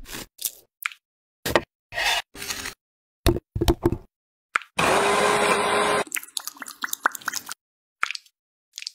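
Short scoops, scrapes and clicks of utensils working cut pineapple, then a small electric food chopper runs for about a second, chopping pineapple chunks, followed by light clinks and taps.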